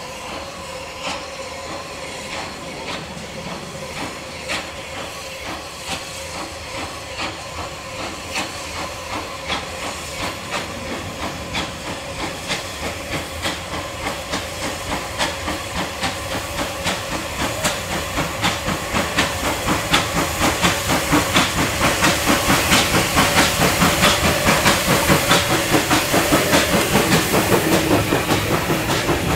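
West Country class steam locomotive 34092 'City of Wells', a three-cylinder Bulleid Light Pacific, working a train towards the listener. Its exhaust beats come in a steady rhythm over a constant hiss of steam, and grow louder as it draws near and comes alongside.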